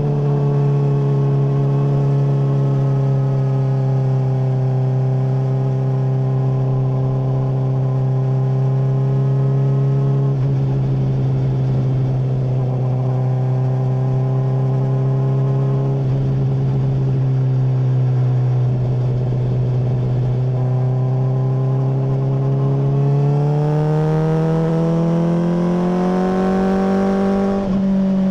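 Honda CBR600RR inline-four through a MIVV full exhaust, held at steady revs for a long stretch, then revving up as the bike accelerates, with a brief break near the end like a gear change.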